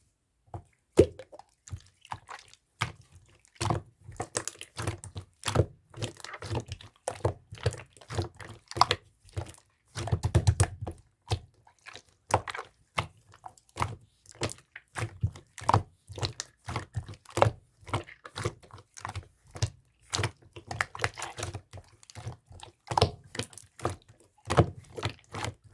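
Clear slime being squeezed and worked by hand, giving an irregular stream of sharp clicky pops as trapped air bursts, several a second, with a burst of heavier, duller squelches about ten seconds in.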